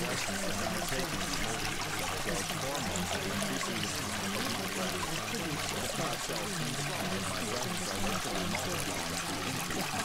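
Steady, unbroken water-like rushing noise, as of a stream or pouring water. It is the masking track that subliminal affirmations are laid under.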